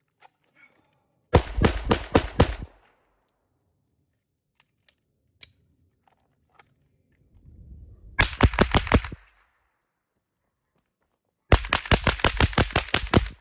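Three rapid strings of gunshots from a KP9 firing 147-grain subsonic rounds, about five shots a second: a short string early, a second string past the middle, and a longer string near the end. Faint clicks between the strings.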